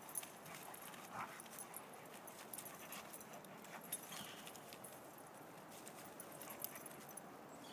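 Two dogs, a German Shepherd and a black dog, play-fighting on dry fallen leaves: faint scuffling and leaf crunching from their paws, with scattered sharp clicks and no barking.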